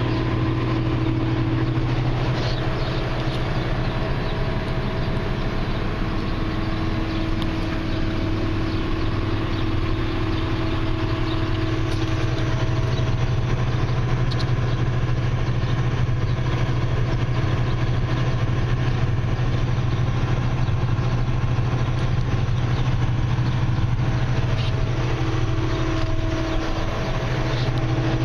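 Claas Tucano 430 combine harvester's diesel engine running steadily at idle, with a steady whine over it that drops away a little before halfway through and comes back near the end.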